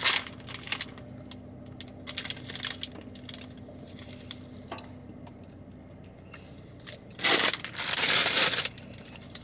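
A chocolate bar's wrapper being handled: scattered small clicks and crinkles, then two louder bursts of crinkling near the end.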